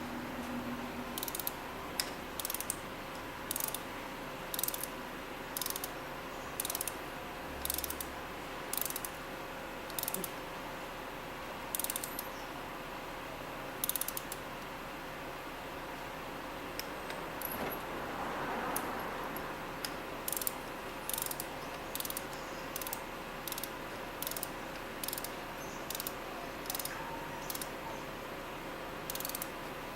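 Ratchet wrench clicking as spark plugs are run in and tightened to torque: sharp clicks about one a second, in short runs.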